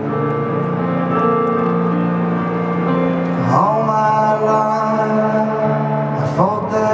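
Live solo piano ballad: a man sings slow, drawn-out phrases over held piano chords, with a new sung line sliding in about three and a half seconds in and again near the end.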